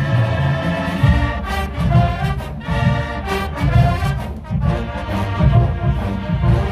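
College marching band playing: brass sustaining chords over bass drums beating about twice a second.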